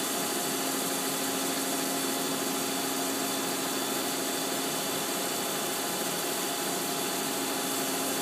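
Large boring mill spindle turning a Sandvik damped boring bar at about 800 RPM, its finishing head with a TCMT cermet insert finish-boring a 130 mm hole: a steady, even machine hum carrying one constant tone.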